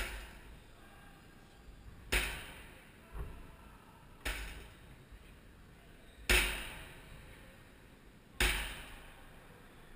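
Weight-stack plates of a Precor lat pulldown machine clanking as they are let back down on each rep: five metallic clanks about two seconds apart, each with a short ring, and a lighter knock between the second and third.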